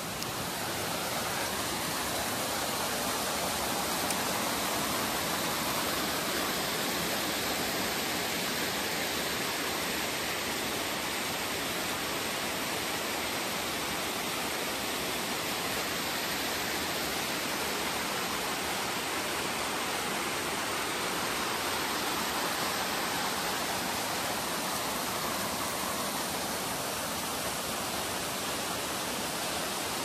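Rushing water from a mountain stream and waterfall, a steady, even rush that grows slightly louder in the first second.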